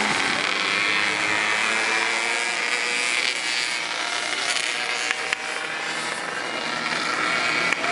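Go-kart engines buzzing as the karts race around the circuit, their revs rising and falling through the corners.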